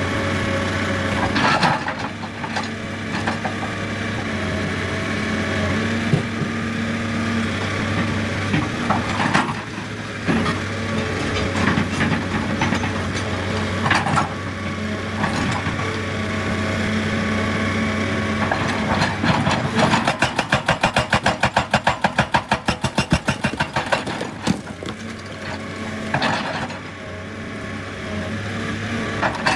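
Excavator's diesel engine running steadily under load, with knocks and scrapes from the machine working rock and earth. About two-thirds of the way through there is a fast, even clanking for about four seconds.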